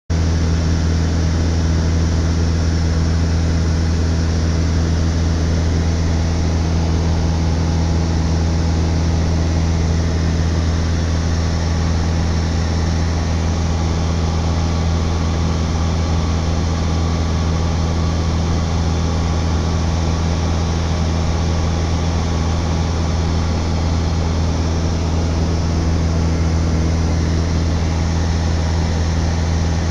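Steady drone of a small propeller plane's engine and propeller heard from inside the cabin in flight: a deep, constant hum with air rushing over the airframe.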